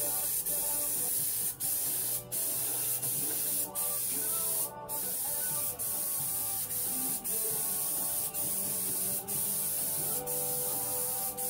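Spray gun spraying gel coat flow coat onto fibreglass hatches: a steady hiss of air and atomised resin, broken by short gaps about once a second as the trigger is let off between passes.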